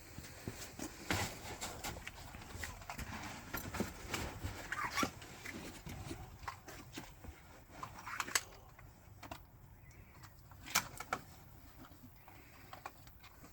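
Scattered knocks, clicks and shuffling as a rifle shooter handles the rifle and gear and moves into position on a stage. No shot is fired.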